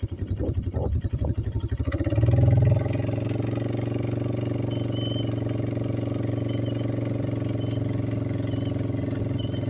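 Four-wheeler (ATV) engine running with a quick, even pulsing. About two seconds in it revs up briefly, then holds a steady speed.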